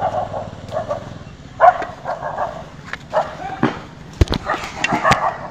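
Puppies barking repeatedly in short, high yaps, with a couple of sharp knocks about four seconds in.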